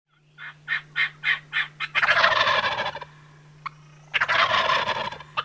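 A hand-blown crow call (reed call with a walnut barrel) starts with about six short, quick caws. It then sounds two longer, raspy, fluttering calls, each about a second long.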